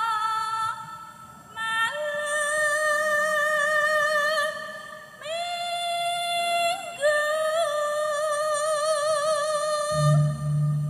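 A solo Javanese sinden (female vocalist) sings long, held notes with a wavering vibrato, in phrases of a few seconds with short breaths between them. A low steady tone comes in near the end.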